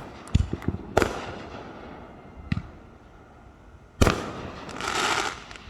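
Consumer fireworks going off: a few sharp pops, a loud bang about a second in and another about four seconds in, the second followed by about a second of hissing noise.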